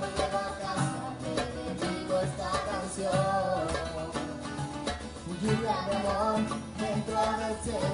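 Two acoustic guitars strumming and picking a Latin pop song live, a steady rhythmic accompaniment with a melody over it.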